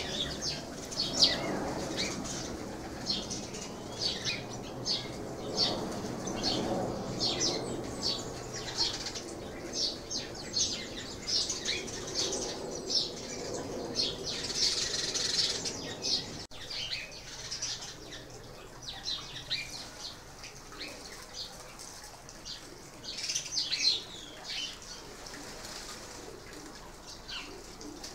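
Sparrows chirping: a steady run of short, high, repeated chirps, with a brief rushing noise about halfway through.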